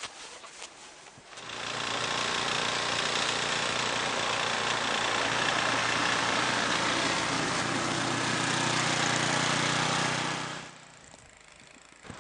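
An engine running steadily with a loud rushing noise over it, starting about a second and a half in and stopping shortly before the end.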